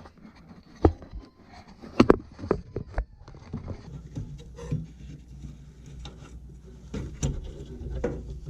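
Handling noises at the furnace: a string of sharp knocks and clicks, the loudest a quick cluster about two seconds in, over a low steady hum that comes in about three and a half seconds in.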